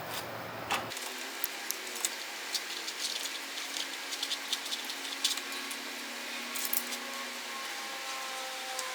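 Light metal clicks and clinks of an Allen key and bolts as the brake caliper's mounting screws are turned in by hand, scattered irregularly, over a faint steady hum.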